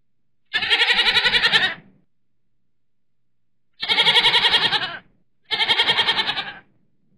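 Goat bleating three times, each call about a second long with a fast quaver: one call near the start, then two close together in the second half.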